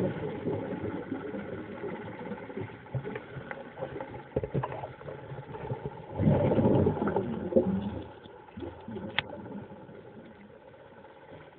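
Muffled underwater sound picked up by a diving camera, with scattered small knocks and a louder swell of low rumbling noise about six seconds in, growing fainter near the end.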